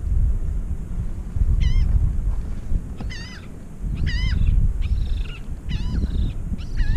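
A waterbird calling repeatedly, about seven short calls that waver in pitch, starting about a second and a half in, over wind buffeting the microphone.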